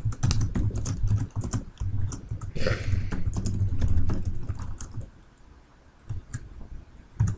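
Fast typing on a computer keyboard: a rapid run of keystrokes for about five seconds, then a pause broken by a few single key presses near the end.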